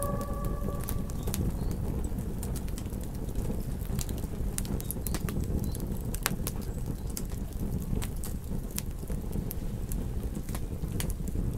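Campfire crackling, with many irregular sharp pops and snaps over a steady low rumble. A wolf's howl fades out in the first second.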